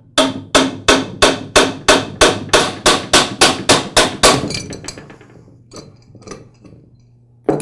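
Hammer tapping repeatedly on the end of an air compressor's eccentric shaft, about three even strikes a second, to drive the connecting rod off the shaft. The strikes stop about four seconds in and a few lighter knocks follow.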